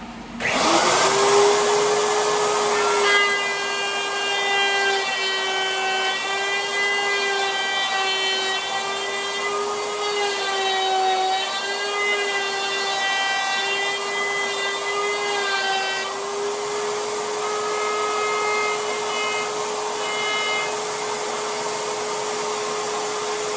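Table-mounted router spinning up and flush-trimming PVC with a spiral bit whose bearing rides an MDF template: a steady high motor whine over rough cutting noise, its pitch wavering slightly as the bit takes load.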